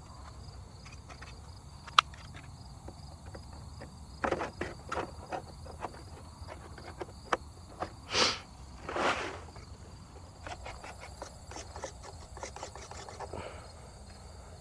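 Steady high chirring of crickets or other insects, with scattered sharp clicks and knocks and two short rustling noises a little past halfway.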